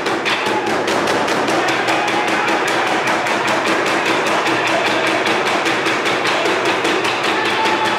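Traditional Burundian drums (ingoma), large wooden drums with hide heads, beaten with sticks by a troupe of drummers in a fast, even rhythm of about six strikes a second.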